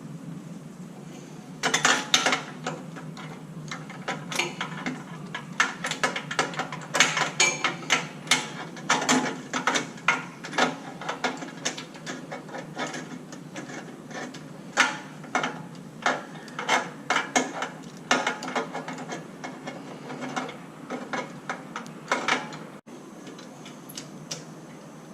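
Metal hand tools clicking and clinking in quick, irregular runs as a spark plug is worked with a plug spanner, ratchet-like clicks among them. The clicking starts about two seconds in and stops a few seconds before the end, over a low steady background hum.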